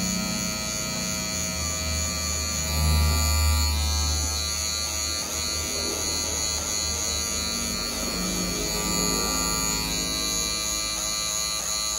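Electric hair clipper running with a steady buzz while cutting hair, getting louder and deeper for a couple of seconds about three seconds in.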